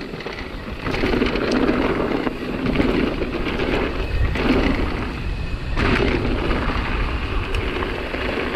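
Nukeproof Megawatt e-mountain bike ridden fast down a dirt forest trail: wind rushing over the helmet-camera microphone and a rumble of tyres over dirt and roots, with scattered rattles and knocks from the bike, swelling in surges.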